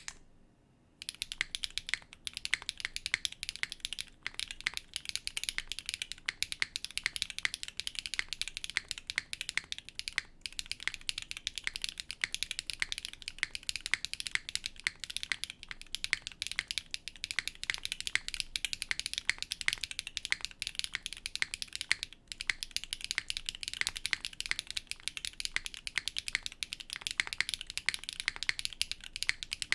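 Fast, continuous typing on a Neo65 mechanical keyboard with an aluminium plate and Keygeek Peach Cheesecake keycaps, a dense run of keystroke clacks that starts about a second in and pauses briefly a few times.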